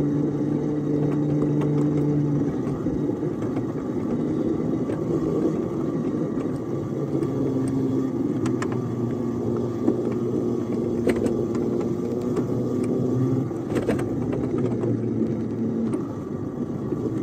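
Ride-on 7½-inch gauge locomotive running along the track with a flatcar, a steady pitched drive hum that dips in pitch a few seconds in, with a few sharp clicks.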